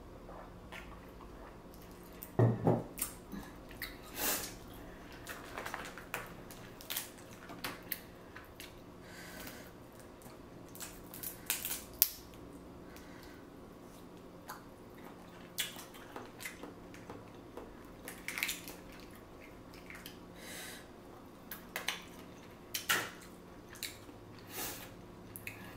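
Close-miked mukbang eating sounds: seafood shells cracking and being pulled apart, with wet, saucy squishes and chewing, in scattered short bursts. The strongest crack comes about two and a half seconds in, over a faint steady hum.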